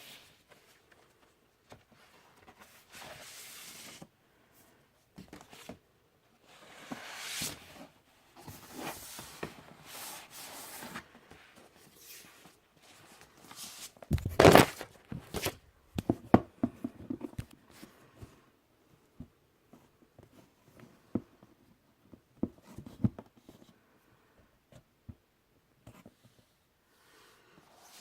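Paper and cardboard handling: album sleeves, inserts and folded posters rustling and sliding against each other in irregular bursts, with one sharp thump about halfway through and small taps and clicks after it.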